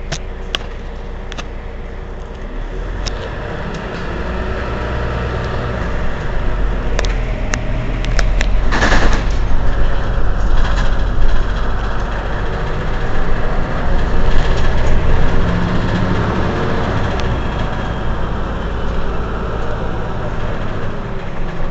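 Diesel engine of a Mercedes-Benz Citaro C2 Euro 6 city bus running, growing louder from a few seconds in. Scattered clicks and a short burst of air hiss come about nine seconds in.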